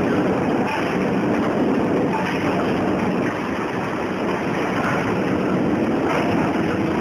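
Bitumen membrane packing line running: roller and slat conveyors carrying bagged membrane rolls, a steady mechanical running noise that does not let up.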